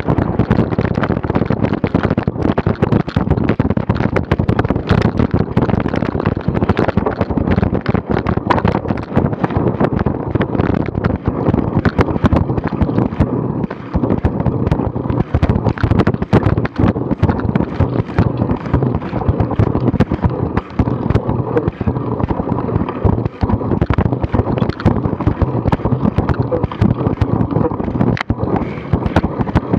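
Wind buffeting the microphone of a bike-mounted action camera while a cyclocross bike rides over bumpy grass, with a constant clatter of knocks and rattles from the bike.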